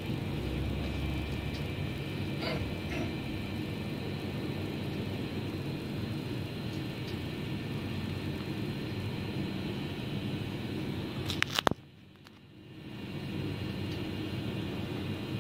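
Steady low rumble with a faint high hum. About two-thirds of the way through, a few sharp clicks are followed by a sudden drop in sound lasting about a second, which then fades back in.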